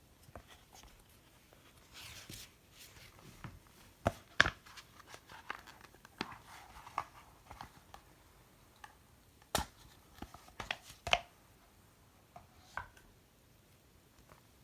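Hands handling an iPad box and its packaging: scattered sharp taps and clicks, with short stretches of tearing or rustling.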